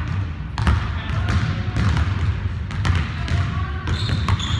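Basketball bouncing on a hardwood gym floor: separate dribble knocks at an uneven pace over a steady low hum, with short high squeaks about four seconds in.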